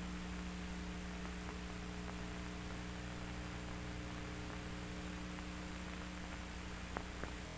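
Steady electrical mains hum with hiss on an old recording's soundtrack, with two faint clicks about seven seconds in.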